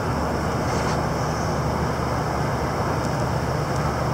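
Wind blowing across the microphone: a steady, even low noise with no break.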